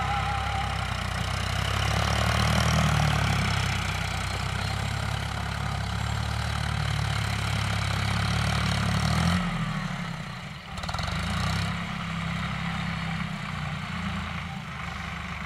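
Diesel engine of a Sonalika Tiger tractor running steadily under load as it pulls a rotary tiller (rotavator) through the field. The low engine drone falls away for about two seconds past the middle, then comes back fainter.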